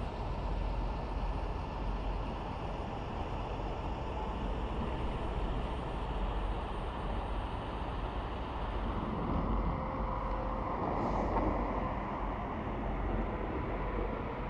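Highway traffic: a steady rumble of tyres and engines from passing trucks and cars, with one vehicle swelling louder as it passes about ten to twelve seconds in.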